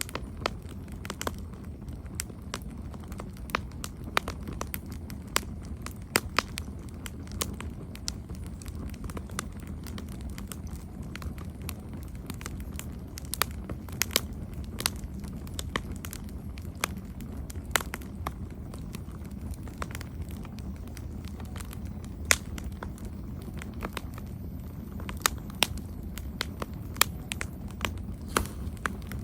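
Campfire burning, with irregular sharp crackles and pops of the wood over a steady low rumble of the flames.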